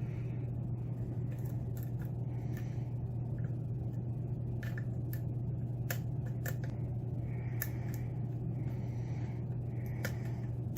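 Scattered small clicks and ticks of a hook pick working the pin stack of a Yale lock under tension, irregular and a second or so apart, over a steady low hum.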